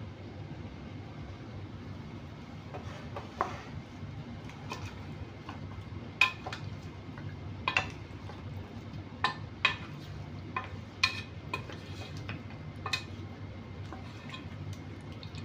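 A wooden spoon stirring a seafood boil in a stainless steel pot, knocking irregularly against the pot's side, with the knocks starting about three seconds in. A steady low hum runs underneath.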